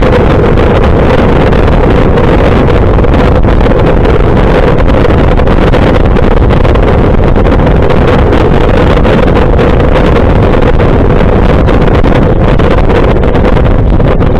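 Loud, steady wind rush buffeting the microphone of a camera mounted on a moving motorcycle, with a steady motorcycle engine drone underneath.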